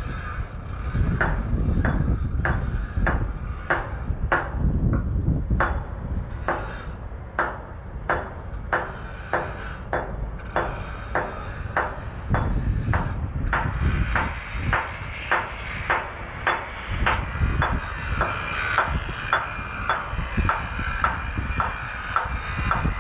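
A hammer striking at an even pace, about three blows every two seconds, over a low rumble.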